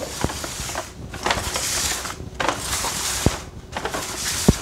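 A bag rustling and crinkling in about four stretches with short gaps, with a few sharp clicks and knocks as things are handled in it.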